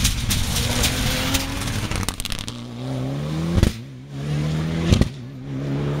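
Rally car engine under hard acceleration, its pitch climbing and dropping back at two gear changes, each marked by a sharp crack from the exhaust about three and a half and five seconds in.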